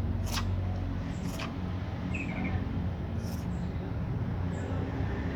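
Congested, rattly breathing of a Persian cat sick with flu: a steady low rattle, broken by a few short snuffles.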